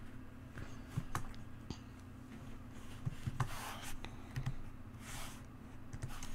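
Sparse keystrokes and clicks on a computer keyboard, a few at a time with pauses between, over a faint steady low hum.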